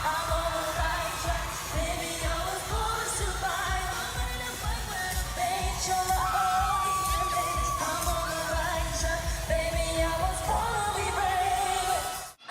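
A female singer singing live in concert over a pop backing track with a steady bass beat. The music cuts out abruptly just before the end.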